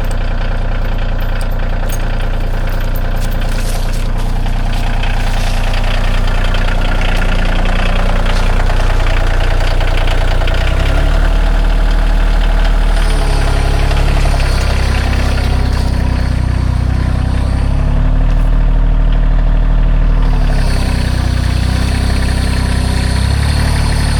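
An engine running throughout. Its low drone shifts in pitch and strength a few times, as if working under changing load, most noticeably from about eleven seconds in.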